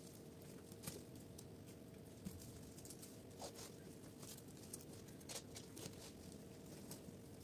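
Faint rustling and scattered light clicks of bougainvillea stems and leaves being handled and wound around a coir moss pole, over a low steady hum.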